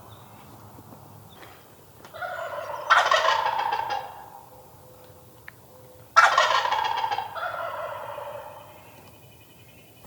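Wild turkey gobblers gobbling loudly at close range: two bursts of rapid, rattling gobbling, the second starting abruptly about six seconds in.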